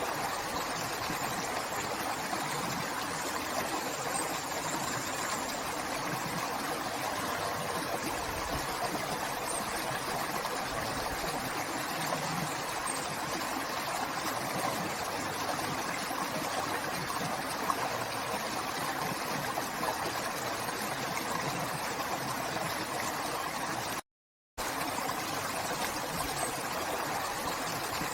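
River water flowing steadily over rocks, an even rushing and babbling. It cuts out completely for about half a second near the end, then resumes.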